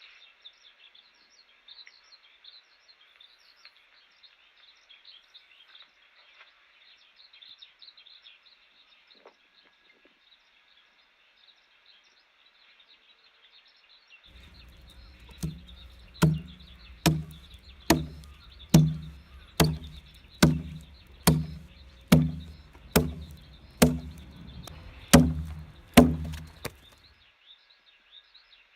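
Chips being cut from a Chinese fir log with a hand tool that has no iron blade. It makes a run of about fourteen sharp chopping strikes, a little under one a second, starting about halfway through, over faint chirping of birds or insects.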